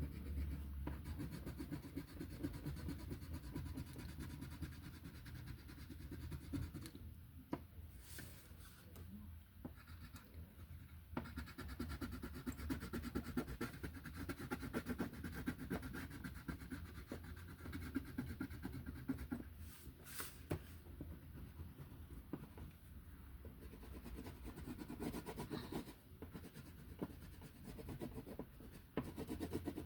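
Colouring strokes on paper: a steady, quiet scratching and rubbing of a colouring tool being worked back and forth, easing off for a few seconds about a quarter of the way in and then resuming.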